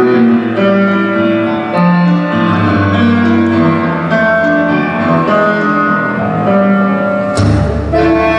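Tango music: a slow, rubato piano passage, with the bass and the rest of the orchestra coming in with a heavy low accent near the end.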